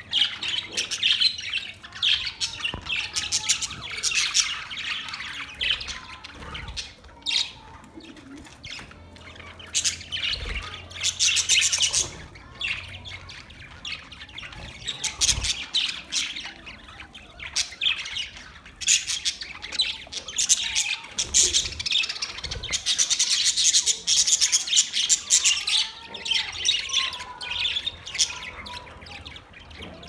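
A flock of budgerigars chattering and squawking together, the high chatter swelling in loud bursts every few seconds.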